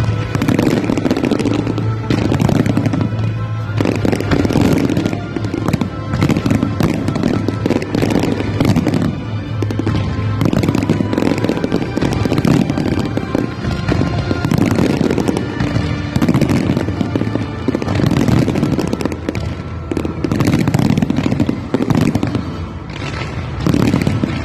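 Fireworks display: a dense, continuous run of bangs and crackling from many shells and fountains going off at once, with music playing throughout.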